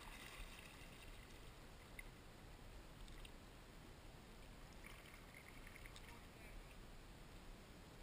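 Faint splashes and drips of a kayak paddle dipping into the river with each stroke, every second or two, over a low steady hiss of moving water.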